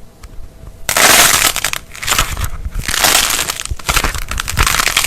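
Something brittle being crushed, crunching and crackling in several loud bursts that begin about a second in.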